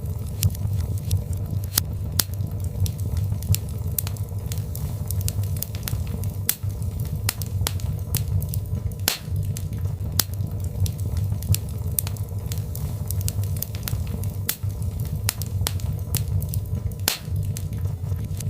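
Birchwood fire burning in a fireplace, with irregular sharp crackles and pops over a steady low rumble of the flames.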